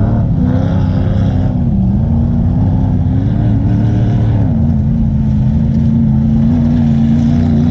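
Polaris Sportsman XP 1000 ATV's twin-cylinder engine running at low speed, its revs rising and falling a little, then settling lower and holding steady from about halfway through.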